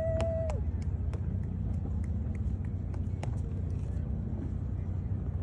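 A race-start horn blast, one steady tone that cuts off about half a second in, over the steady low rumble of a motorboat engine running.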